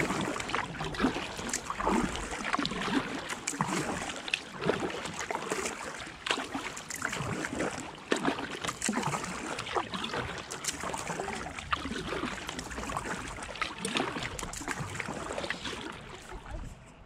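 Kayak paddle strokes in calm river water: irregular small splashes and drips with a steady watery hiss as the boat moves along.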